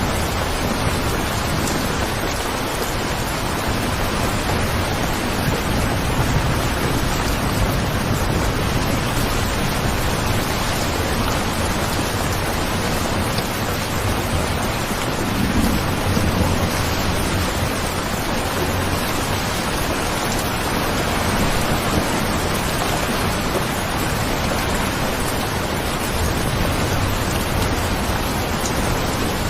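Steady rain falling, an even hiss with soft low rumbles swelling now and then, one about halfway through.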